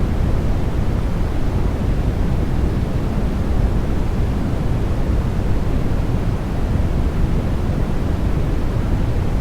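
Steady white noise for sleep, a smooth even hiss weighted toward the low end like pink noise, unchanging throughout.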